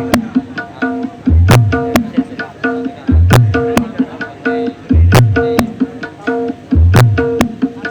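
Percussion-led music played loud through a sound system during a sound check. A short pattern repeats about every 1.8 s: a deep bass hit, then sharp drum slaps, with steady pitched notes in between.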